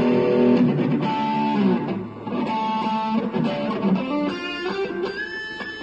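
James Tyler–style solid-body electric guitar played with an overdriven tone: sustained notes for the first couple of seconds, then quicker single-note lines.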